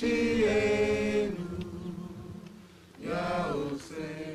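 Several voices singing a slow chant in long held notes. They fade after about a second, then swell again with a sliding rise in pitch about three seconds in.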